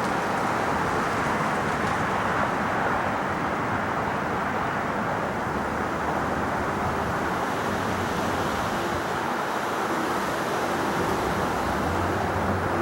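Jet airliner engines running, a steady rushing noise with a faint low hum that comes in near the end.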